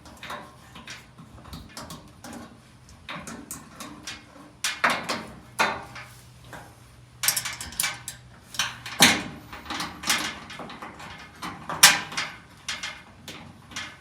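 Irregular clicks, taps and knocks of metal parts being handled and shifted as a fuel-tank sending unit is fitted onto a gas tank, with two sharper knocks near the middle and late on.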